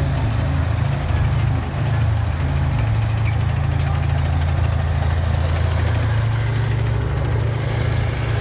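Column of 2S19 Msta-S tracked self-propelled howitzers driving past close by, their diesel engines running with a steady, deep drone.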